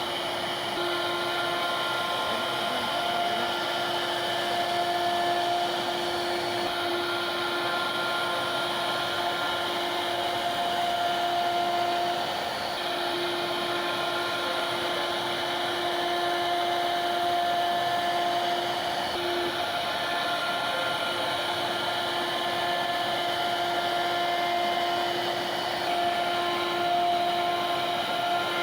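CNC router spindle running as it cuts wood: a steady motor whine with a rushing hiss, its pitched hum coming and going as the cutting load changes.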